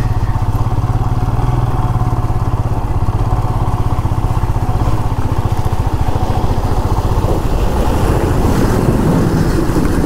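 Motorcycle engine running steadily at low speed, heard from the rider's seat. An oncoming truck passing close by adds a brief rush of louder noise about eight seconds in.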